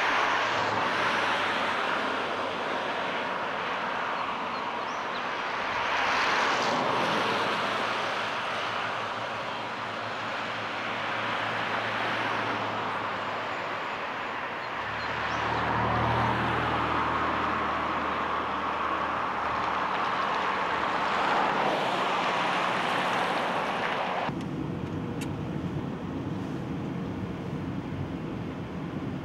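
Highway traffic going by, the noise swelling and fading as vehicles pass, one with a low engine hum. About 24 s in it cuts suddenly to steadier, quieter road and engine noise heard from inside a moving car.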